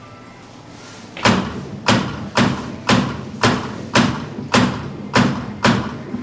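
Souvenir medal engraving machine stamping characters into a commemorative medal, the date being punched in. A series of about nine sharp metallic strikes, nearly two a second, starting about a second in.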